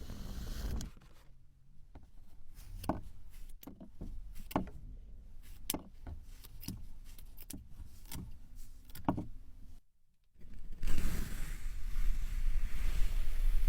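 Kinetic sand being cut: a run of short, soft crunching cuts, about one to two a second. After a brief silence about ten seconds in, a louder steady rustling hiss takes over.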